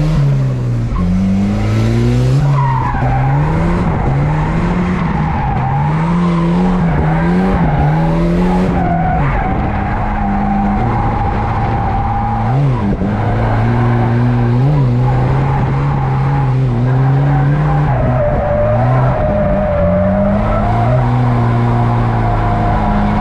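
Volvo 940 turbo's four-cylinder engine pulling in third gear through a drift, its pitch rising and falling with the throttle but staying in a fairly narrow band, with tyres squealing over it. Third gear is too long for the car, leaving the engine low in its revs.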